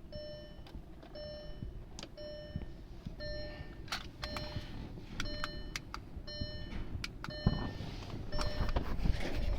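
A short electronic beep from the Audi A6 repeats steadily about every three-quarters of a second, typical of a car's warning chime with the ignition on. Sharp clicks and handling rustle run alongside it and grow louder near the end.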